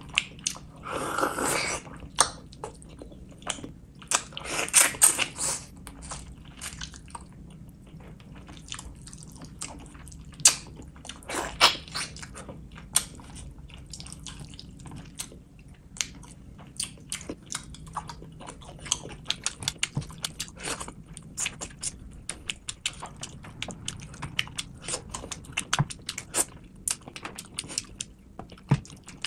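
Close-miked eating sounds of a person chewing curried fish and rice eaten by hand: wet mouth clicks and smacks, many in quick succession, with a few louder, longer sounds in the first five seconds and again around eleven seconds.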